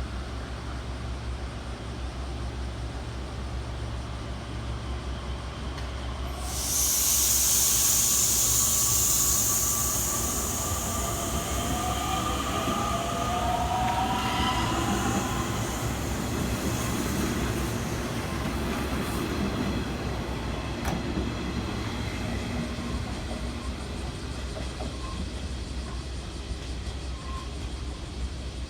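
Nishitetsu 3000 series electric train pulling out of a station: a steady low hum, a sudden loud burst of air hiss about six seconds in, then the traction motor whine rising in pitch as it accelerates away, settling into running noise.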